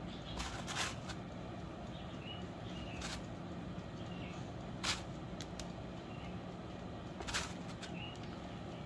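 Soft, short rustles of a gloved hand grabbing and sprinkling shredded cheese, a handful of times, over a steady low hum, with a few faint, brief high chirps.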